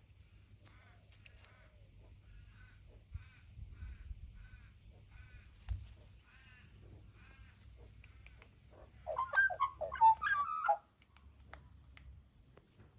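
Australian magpie calling: a run of soft, short calls repeated about twice a second, then, about nine seconds in, a loud burst of warbling calls lasting about two seconds.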